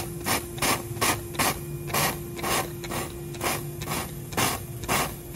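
Water squirted in short spurts, about two a second, from a hand spray bottle onto a freshly welded nut and the hot steel bolt stub, cooling the weld.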